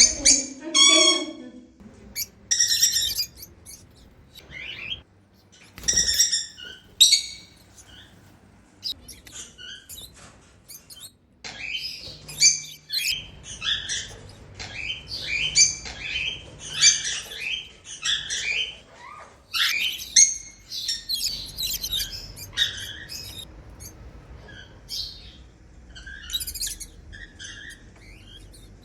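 A flock of African lovebirds chirping and squawking: many short, high-pitched calls in scattered bouts, busiest and most continuous through the middle of the stretch.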